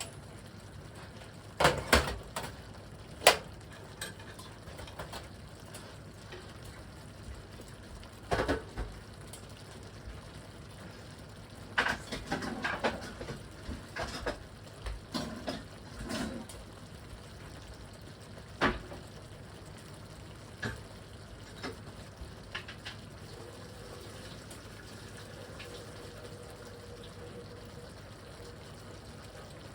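Cookware being handled: pans and utensils knocking and clattering now and then, loudest in a cluster of clanks about a third of the way in, over a faint steady background.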